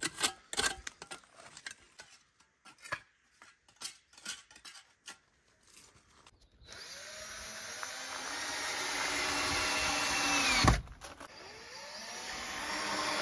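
A spatula scraping and chipping old clay plaster off brick, in scattered short scrapes and knocks. About two-thirds of the way in, a cordless drill starts up driving into timber boards. It grows louder as it runs, stops briefly and starts again.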